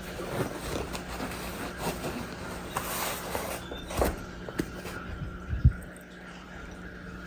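Faint handling of hard plastic animatronic parts: scattered light clicks and a few sharper knocks over a steady low hum.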